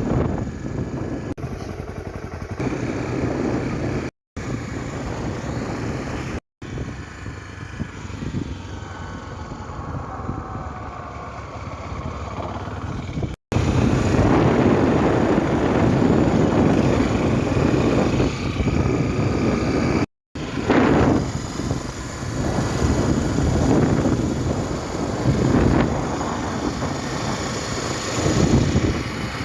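Honda Tornado 250's single-cylinder four-stroke engine running while the motorcycle is ridden, heard across several clips joined by abrupt cuts. It gets clearly louder, with a rushing noise, after about thirteen seconds.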